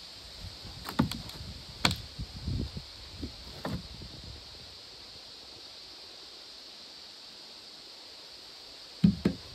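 Several sharp knocks and clunks in the first four seconds, then a pause of about five seconds, and two loud knocks close together near the end, over a steady high hiss.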